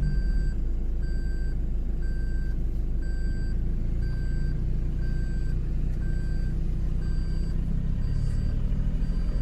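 Off-road vehicle engine running steadily, with a short electronic warning beep repeating about once a second, like a reversing alarm.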